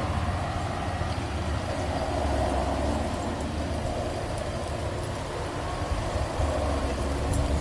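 Wind buffeting the camera microphone: a steady, uneven low rumble with a faint rustle of reeds and leaves.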